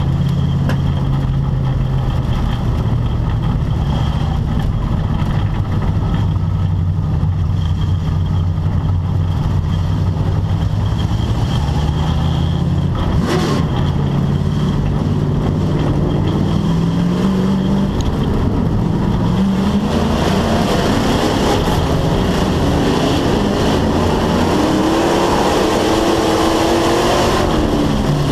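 Race car engine heard from inside the cockpit: it runs at a steady low pace for about the first twelve seconds, then revs climb and it pulls harder and higher through the second half, easing off right at the end.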